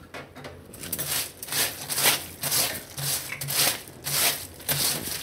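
A hand rubbing ghee over a crinkled plastic sheet, the plastic rustling with each stroke, about two strokes a second.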